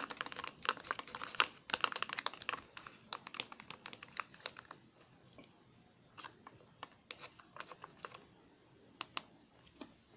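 Chopsticks clicking and tapping against a bowl while stirring a slime mixture, in rapid dense strokes for about the first five seconds, then thinning to scattered clicks.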